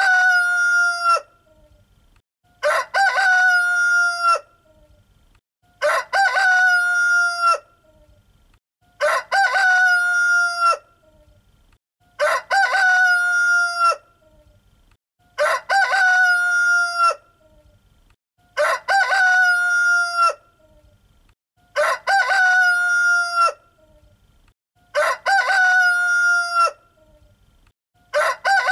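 Rooster crowing: the same cock-a-doodle-doo repeated evenly about every three seconds, each crow lasting a little under two seconds, with quiet between.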